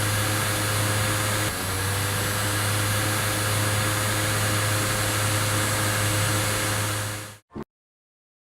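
Small electric fan motor of a miniature desk air cooler running steadily, with a low hum and a rush of air. It cuts off abruptly near the end.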